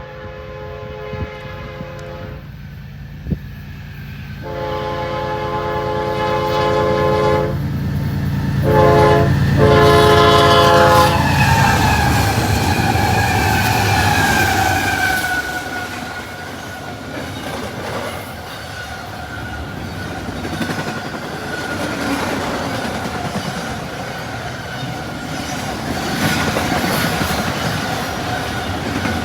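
Diesel locomotive horn sounding the grade-crossing signal: long, long, short, long, the last blast ending about 11 seconds in. The train then rushes past at speed with a falling whine, wheels clattering over the rail joints.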